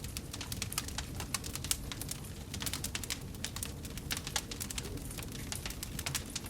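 Wood fire crackling in a fireplace: a steady run of sharp pops and snaps, several a second, over a low rumble of the flames.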